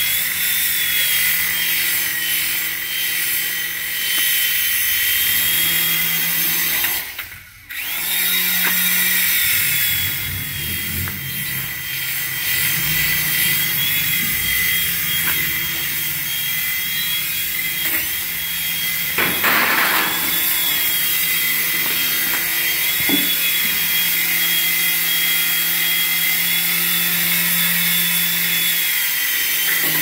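HX708 RC toy helicopter's small electric rotor motors running in flight, a steady high whine whose pitch wavers slightly. The whine cuts out briefly about seven seconds in, and there is a short burst of noise near the middle.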